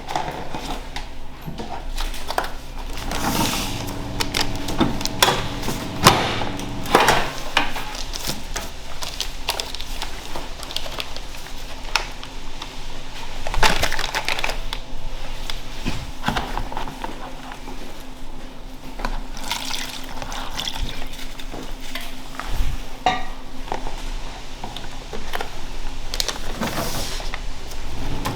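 Kitchen work with pots and liquid: scattered clanks and knocks of metal pots and utensils, with sloshing and pouring of liquid, over a steady hum.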